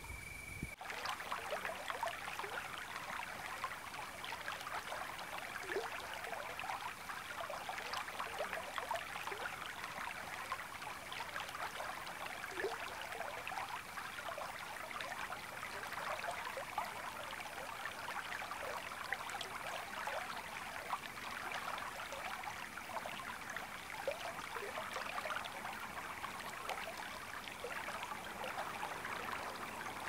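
Shallow river water babbling over stones: a steady rush made of many small trickles and splashes.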